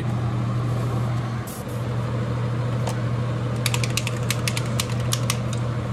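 Spray booth exhaust fan running with a steady low hum. From about three and a half seconds in comes a quick run of light metallic clicks and taps as the metal lure-holding stands are moved and set down.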